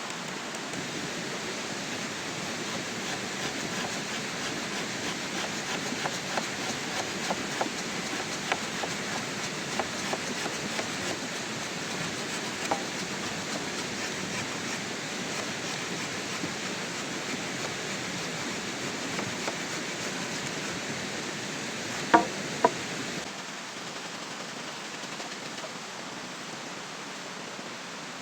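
Steady rain with scattered drop ticks, and two sharp knocks about three-quarters of the way through; the rain noise drops a little just after them.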